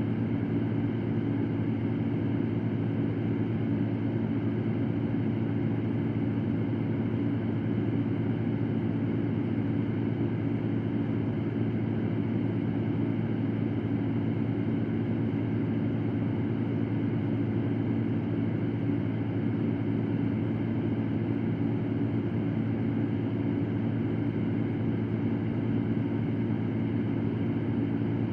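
Electric fan running steadily: an even, low rushing hum that does not change.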